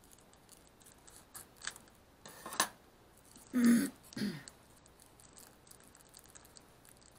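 Light clicks and clinks of small metal hand tools, tweezers and scissors, being picked up and handled on a workbench, with a louder handling noise and a short low voice sound about three and a half seconds in.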